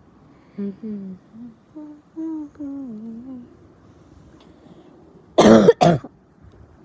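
A sick girl coughs twice in quick succession, loud and harsh, near the end. Before that come a few seconds of soft humming with rising and falling notes.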